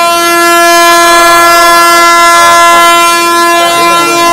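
Railway locomotive horn sounding one long, steady, loud blast at a single pitch.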